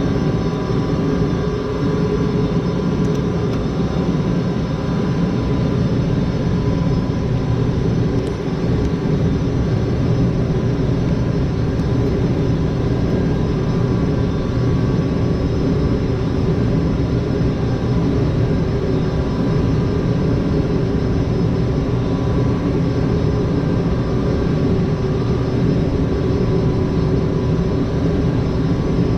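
Gas furnace running: a steady mechanical whir from its blower and inducer fan, with a few steady tones over an even drone.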